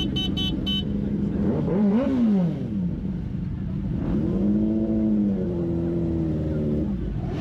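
Kawasaki Ninja sport bike engines idling, blipped up and down once about two seconds in, then revved again and held from about four seconds until dropping back near the end. Three short high-pitched beeps sound in the first second.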